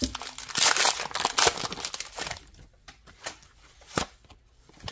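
Foil Pokémon TCG booster pack being torn open: a loud crinkling rip from about half a second in, lasting about a second. After it come scattered small clicks and rustles as the wrapper and cards are handled, with one sharper click near the end.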